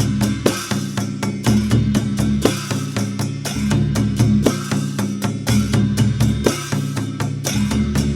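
Dhime, the Newar double-headed barrel drum, played in a fast, dense rhythm of many strokes, with a low ringing drum tone and a cycle that repeats about every two seconds.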